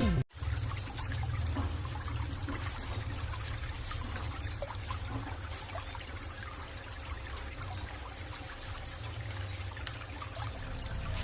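Steady trickling of liquid over a low rumble, with faint scattered clicks.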